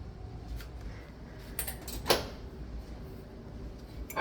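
A few sharp clicks and a knock from handling the wall oven and microwave unit, the loudest about two seconds in, with a short electronic beep from a control-panel button press right at the end.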